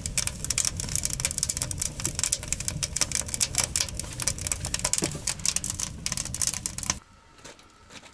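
Wood fire crackling fast inside a small steel tent stove, over a low rumble; it cuts off abruptly about seven seconds in.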